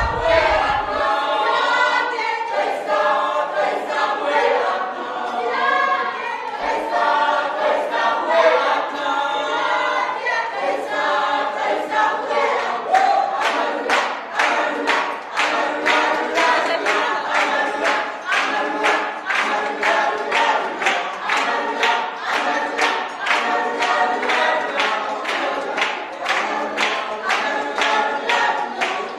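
A group of voices singing together without instruments, with hand-clapping in time to the song, about two claps a second, which becomes more prominent partway through.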